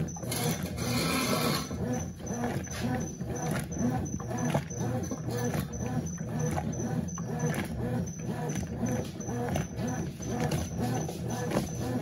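Brastemp 11 kg top-load washing machine agitating a load in soapy water: a low motor hum and water sloshing that swell and fade in a repeating rhythm as the agitator swings back and forth.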